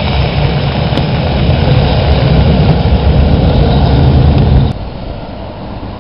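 Streetcar running close by: a loud, steady, low rumble with hiss over it, which falls away abruptly about three-quarters of the way through.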